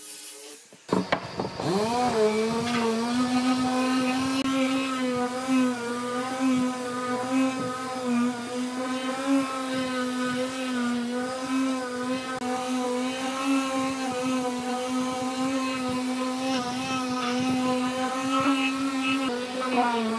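Electric orbital finishing sander starting up about a second in, its motor rising quickly to a steady hum, then running while it sands wood, the pitch wavering slightly as it is pressed and moved.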